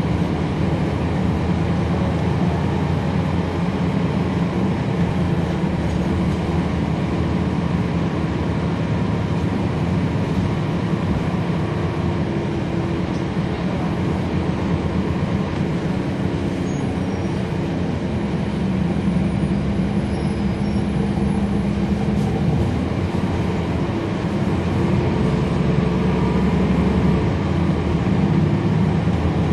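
Interior sound of a 2011 NABI 416.15 transit bus under way: the Cummins ISL9 diesel engine and road noise make a steady drone, its engine note rising and falling gently as the bus changes speed. A faint high whine is heard briefly about two-thirds of the way through.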